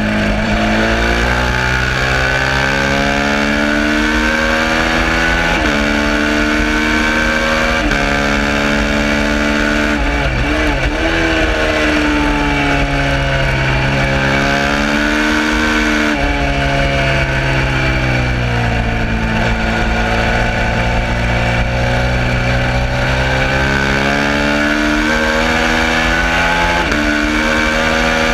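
Suzuki SV650 racing motorcycle's 90-degree V-twin engine at race pace. Its pitch climbs under throttle and drops abruptly at each upshift, with a quick run of rising and falling pitch about ten seconds in as it slows and downshifts for a corner.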